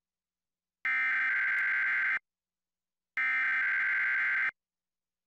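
Emergency Alert System SAME header data bursts: two identical shrill digital tone bursts, each about a second and a half long and a second apart. They are the second and third of the three repeated bursts that carry the coded alert header.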